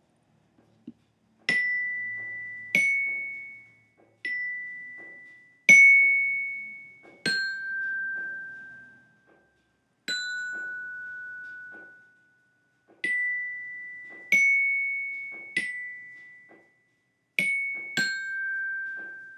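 A mallet instrument with tuned metal bars, such as a glockenspiel, played one slow note at a time. There are about eleven strikes over a few different pitches, and each note rings on for a second or two before the next.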